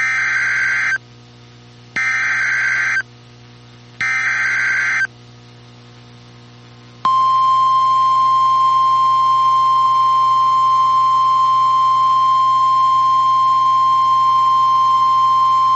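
Emergency Alert System SAME header: three roughly one-second bursts of warbling digital data tones, about a second apart. Then, about seven seconds in, the weather radio's single steady attention tone begins, announcing a severe thunderstorm warning.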